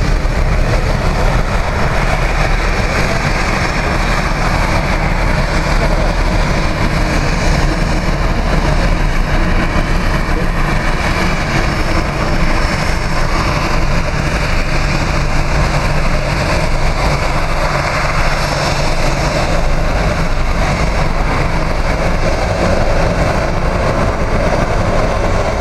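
Aircraft engines running loudly and steadily, a continuous rumble and rush without a clear rise or fall in pitch.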